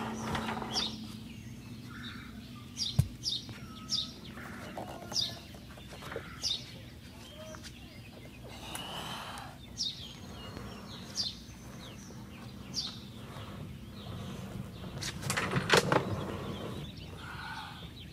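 A heavy plastic fishing kayak being slid and tipped down off a pickup's roof rack, with scattered knocks and scrapes of the hull on the rack. The loudest cluster of knocks comes about 15 to 16 seconds in. A bird chirps throughout with short high calls about once a second.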